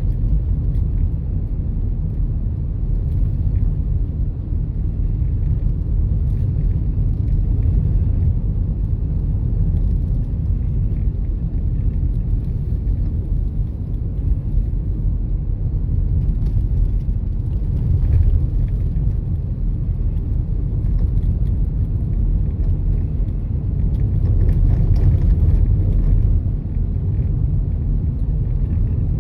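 Car driving at a steady pace: a continuous low rumble of road and engine noise.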